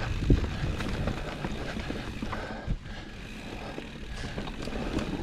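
Bike ridden along a rough dirt trail: a continuous rumble and rattle with sharp knocks, the loudest just after the start and another near the middle.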